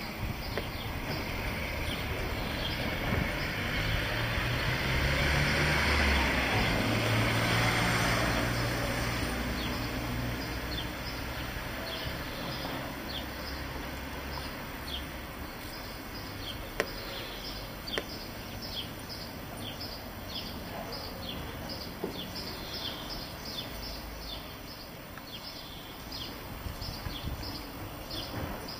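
A low engine drone swells and then fades over the first twelve seconds, like a vehicle passing. After it, a bird chirps over and over, short high chirps about once or twice a second.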